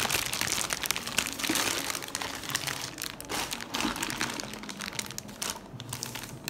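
Clear plastic wrapping crinkling as plastic-wrapped stainless steel cookware is handled, busiest in the first half and dying down toward the end.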